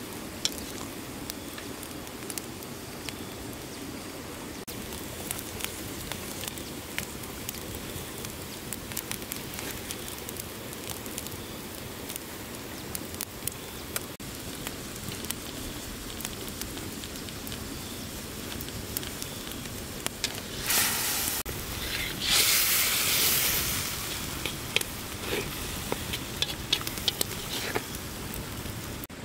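Wood campfire crackling and popping under a wok, over a steady hiss. Two thirds of the way through come two loud sizzles from the hot wok, the second lasting about two seconds.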